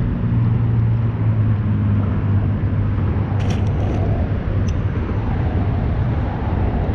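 Steady low rumble throughout, with a small splash about three and a half seconds in as a released crappie drops back into the water.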